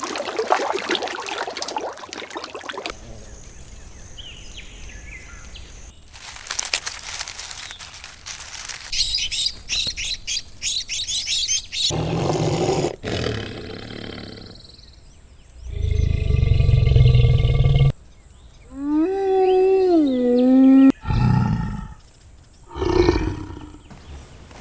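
A string of different animal calls, one after another, including a loud, deep big-cat roar past the middle and a pitched call that rises and falls soon after, with a stretch of rapid chirping earlier.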